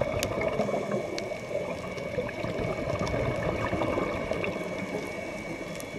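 Underwater sound picked up through a camera housing: a steady bubbling, gurgling rush with scattered sharp clicks and a faint steady high whine.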